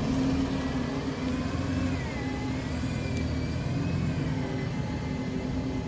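A motor running with a steady low hum and a faint whine that slowly rises and falls in pitch.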